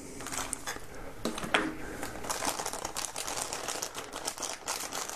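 Clear plastic bag crinkling and rustling in the hands, in quick irregular crackles, as a small device is worked out of it.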